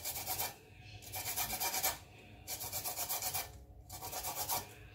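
Lemon being grated for its zest: fast rasping strokes of the rind across a grater, in three spells of about a second each with short pauses between.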